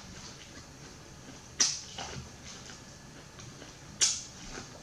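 Biting kernels off an ear of corn on the cob: two sharp bites, about a second and a half in and again near the end.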